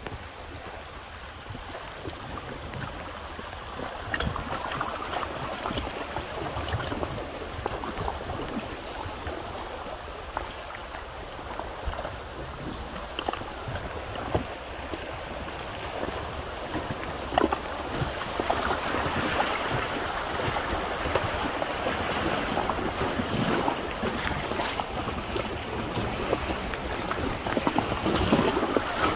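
River water rushing and splashing around an inflatable raft drifting through shallow rapids, growing louder in the second half, with occasional sharp knocks.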